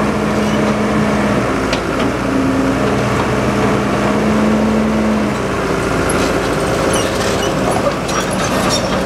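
Diesel engine of an old Case tracked excavator running as the machine travels and lifts its bucket, with a steady whine that stops about five seconds in. Sharp clanks and squeaks from the steel tracks come in over the last few seconds.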